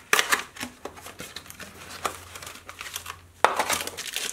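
Packaging of a new dial indicator being unpacked: the cardboard box is opened with a sharp scrape and rustle of card, then about three and a half seconds in a clear plastic bag starts crinkling as it is pulled open.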